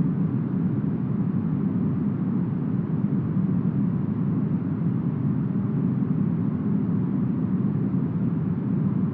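Smoothed brown noise shaped like deep forest wind: a steady, deep, even noise with the highs rolled off and no gusts or changes.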